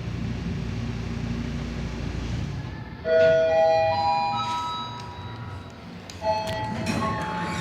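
Hyundai elevator chime: four clear notes stepping upward in pitch, sounding about three seconds in and again near the end. A low rumble runs under the first three seconds before the first chime.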